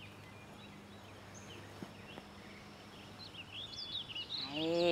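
Small birds chirping with short high twittering calls over a faint steady low hum. Near the end a person's voice holds one drawn-out note that rises and then falls.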